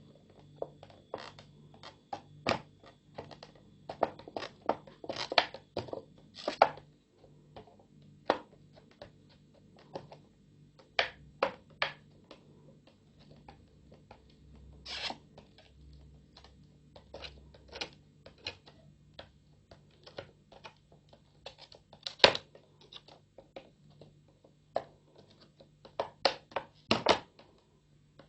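Thin plastic bottle clicking and ticking as a soldering iron tip is pressed and dabbed into it and the bottle is shifted in the hand: irregular sharp clicks and taps, a few louder knocks among them, over a faint steady low hum.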